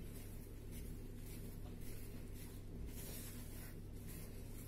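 Whisk stirring thick cake batter in a plastic bowl: soft, irregular scraping strokes as flour is beaten into the batter to work out lumps. A steady low hum lies underneath.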